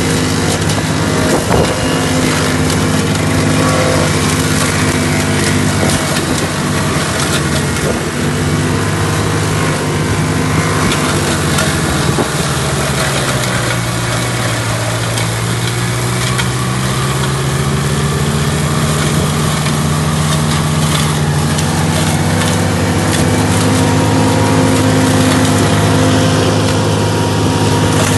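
Ditch Witch SK600 mini skid steer's engine running hard, with its flail mower attachment spinning and chopping. The engine note sags in pitch about halfway through, as if pulled down under load, then climbs back.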